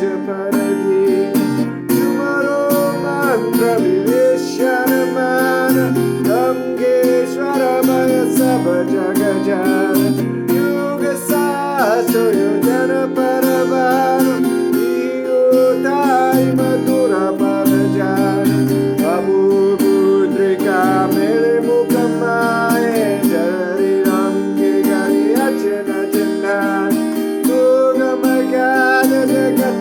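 Music: strummed acoustic guitar with a gliding, bending melody line over it.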